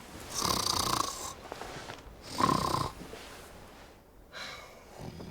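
A person snoring in bed: two loud snores about two seconds apart, then fainter sounds near the end.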